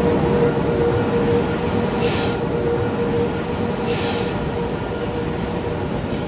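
LIRR train of C3 bilevel coaches, with a DM30AC locomotive on the rear, rolling out and away down the track: a steady rumble with a held tone that slowly fades. Two short hisses come about two seconds apart.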